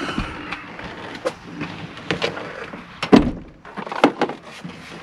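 Clicks and knocks from a pickup truck's door and its latch and handle being worked, with one loud thump about three seconds in and another just after four seconds.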